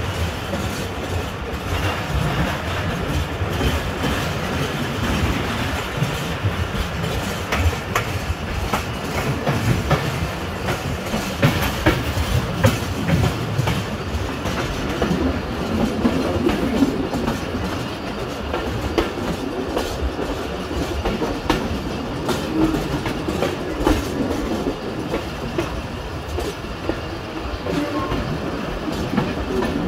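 Steel wheels of a moving passenger coach clattering over rail joints and station points, over a steady running rumble. Irregular sharp knocks come thickest a third of the way through.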